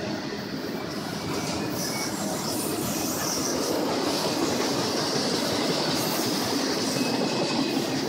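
Double-stack intermodal freight cars rolling past, a steady rumble and rattle of steel wheels on rail.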